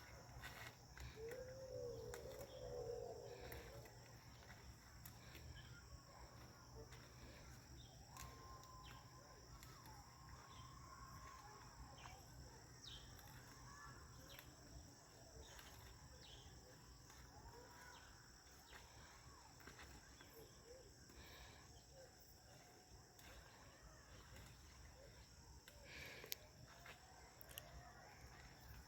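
Quiet outdoor ambience: a steady high-pitched insect drone, typical of crickets, with faint distant voices in the first few seconds and scattered light clicks.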